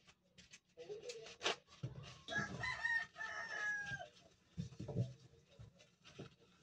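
A rooster crows once: one long call of about two seconds that dips in pitch at the end. Scattered clicks and a few low knocks sound around it.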